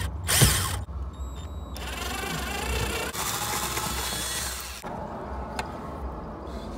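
Cordless drill-driver running in short runs to back screws out of a truck's plastic interior door panel: a brief burst about half a second in, then a longer run of about three seconds.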